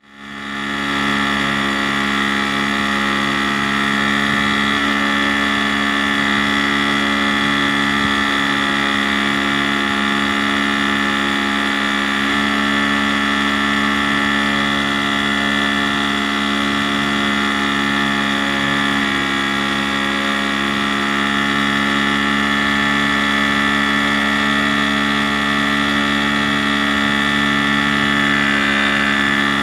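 Small boat's outboard motor running steadily at speed, its pitch unchanging throughout.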